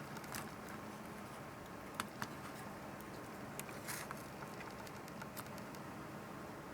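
A few light, scattered clicks and taps, like small parts being handled, over a steady hiss with a faint hum.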